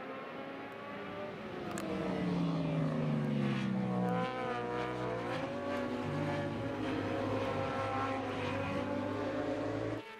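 Superbike racing engines at high revs, their pitch falling for the first few seconds and then holding a steady note; the sound cuts off suddenly near the end.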